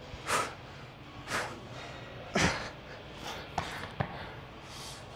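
A man breathing hard after an exercise set, with heavy exhalations about once a second. Two short sharp knocks come near the end.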